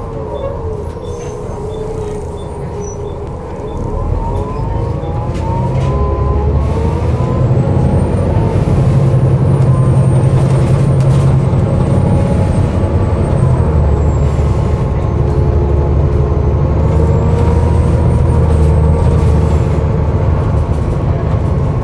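Volvo B7TL double-decker bus heard from on board: its six-cylinder diesel engine and driveline grow louder about four to six seconds in as the bus pulls away and speeds up. Whining, groaning tones rise and fall over the rumble, with a faint high whine in the middle and light ticking about twice a second for the first few seconds.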